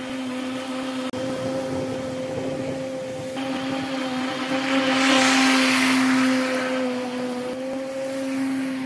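A steady motor hum, with a louder rushing hiss swelling for about two seconds around five seconds in.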